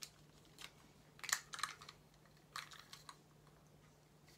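Small plastic toy figures being handled: light plastic clicks and rattles in a few short clusters, the loudest just over a second in.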